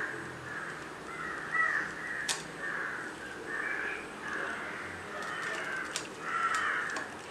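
Crows cawing over and over, one call after another, with a couple of sharp clicks of a fork against a ceramic plate.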